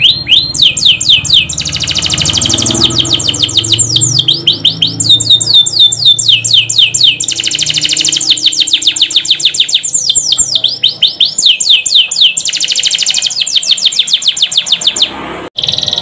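Domestic canary singing a loud, continuous song of rapid trills and quick repeated downward-sweeping whistles, switching from one rolling phrase to the next every second or two. The song breaks off for an instant near the end.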